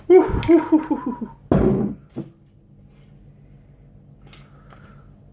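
Jack Daniel's barbecue sauce squelching out of its bottle into a bowl for about a second, then a knock as the bottle is set down and a short click.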